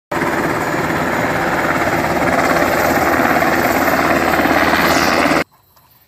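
Helicopter hovering low overhead, its rotor beating in a loud, steady, fast chop; the uploader takes it for a military aircraft. The sound cuts off suddenly about five seconds in.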